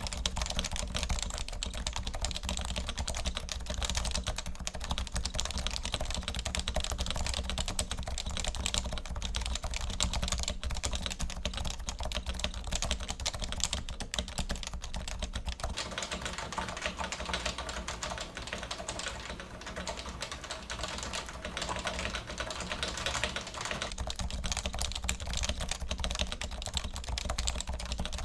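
Continuous fast typing on a custom Topre electro-capacitive keyboard with a polycarbonate case, stainless steel plate and lubed switches; the keystrokes run together into a dense clatter. For several seconds past the middle it sounds less deep, then goes back to its fuller tone.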